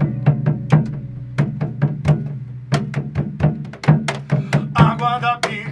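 Live band music: a drum struck with sticks and a hand drum keep a steady groove of about four strokes a second over a held low note, and a singing voice comes in near the end.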